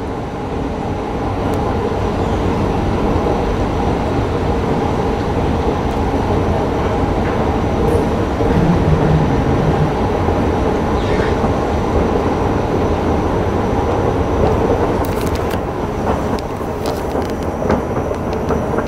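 Steady mechanical rumble of a long inclined moving walkway running, with a faint hum over it. A few light clicks come near the end.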